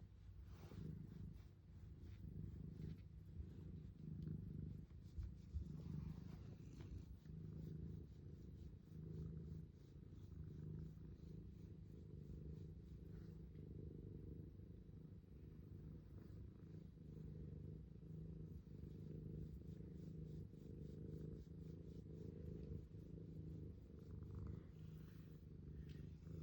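Domestic cat purring steadily, a low, rhythmically pulsing rumble that the uploader likens to thunder.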